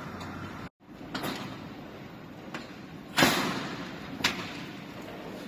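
Rolling shutter door being handled, giving a few sharp knocks and clatters; the loudest comes about three seconds in and rings on briefly.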